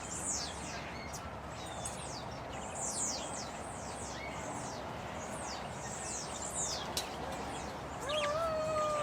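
Many small birds chirping: a steady stream of short, high, downward-sweeping chirps overlapping one another. Near the end a lower, steady held tone lasts about a second and a half.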